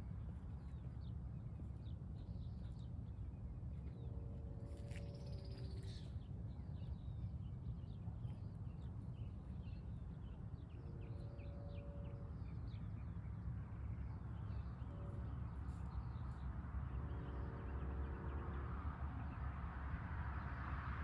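A distant train horn sounds the grade-crossing signal: two long blasts, a short one, then a long one, from the train approaching the crossing. Small birds chirp throughout over a steady low rumble.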